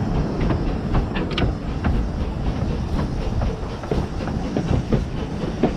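The 15-inch gauge 2-8-2 steam locomotive River Mite and its train running along the line: a steady low rumble with frequent sharp clicks and knocks of the wheels over the rail joints, several a second at uneven spacing.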